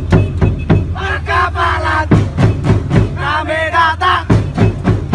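Music: a chant-style song, many voices singing together in unison over a steady drum beat.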